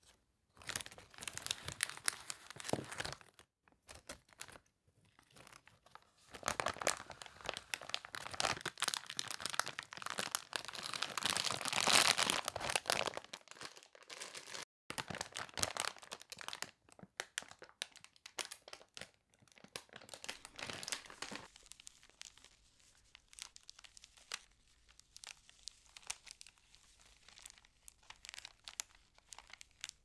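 A plastic candy bag crinkling as it is torn open and handled by hand: dense crackling that comes and goes in bursts, loudest about halfway through and softer in the last third.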